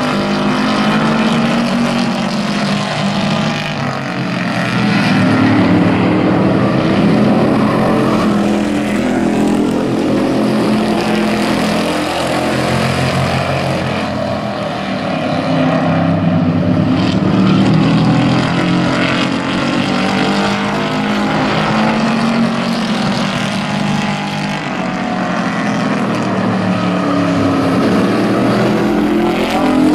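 Several race pickup trucks running at racing speed, their engines overlapping, the sound swelling and fading as the pack goes round the oval.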